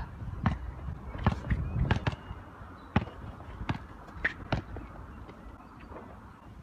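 A basketball bouncing on a hard court: a string of sharp, irregular bounces, coming thicker in the first four seconds and then thinning out.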